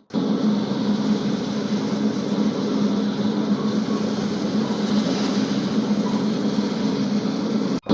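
Steady, even drone of a fishing boat's engine running, with a low hum and noise throughout.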